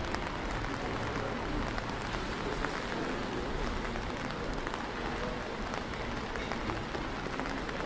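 Rain falling steadily on a wet paved street, a continuous hiss with many small drops pattering.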